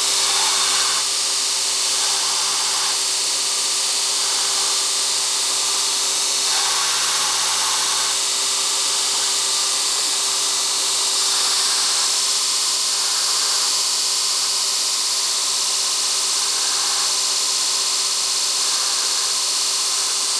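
Grinder running steadily, grinding the saw marks off a small stainless steel piece: a constant high hiss over a steady motor hum, with the grinding noise swelling and easing as the piece is pressed on and lifted.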